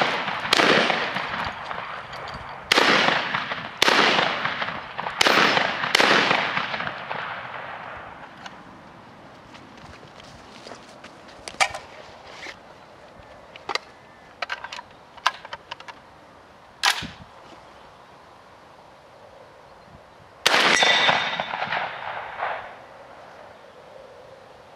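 UTAS XTR 12 semi-automatic 12-gauge shotgun fired in a string of about five shots over the first six seconds, each shot echoing. Then a long pause filled with light metallic clicks from handling the gun, one louder click, and another echoing shot about twenty seconds in.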